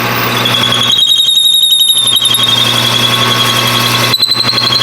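Machine tool cutting metal with a continuous high-pitched squeal over the steady hum of its motor. The squeal wavers rapidly and steps up slightly in pitch about four seconds in.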